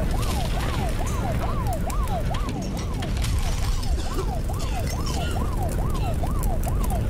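An emergency vehicle siren rising and falling rapidly, about three sweeps a second, over a steady low rumble with scattered crackles.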